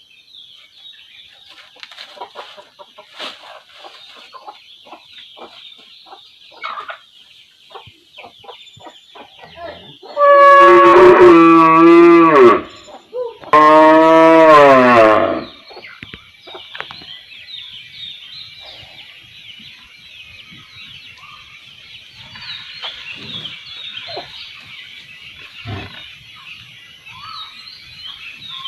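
A cow mooing twice around the middle: two long, loud calls, one right after the other. Chickens cluck and small birds chirp throughout.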